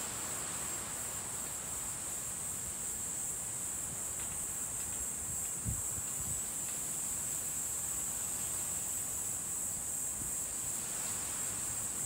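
A steady high-pitched drone of insects in the summer trees over a soft haze of wind, with a brief low thump of wind on the microphone about six seconds in.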